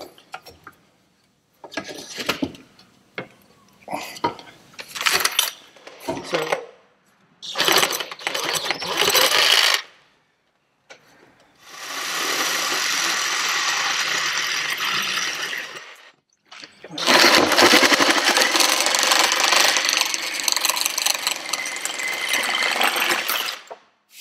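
Cordless power tools cutting a plastic starboard (HDPE) plate: several short bursts, then a cordless drill running steadily for about five seconds as it bores through the plate, then after a brief pause a cordless reciprocating saw cutting through the plate in an uneven, rough run.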